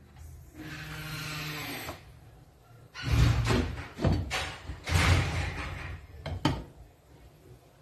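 A glass lid set down on a metal cooking pot with a wooden spoon handled against it: a few loud knocks and clatters. A steady low hum runs for about a second and a half before them.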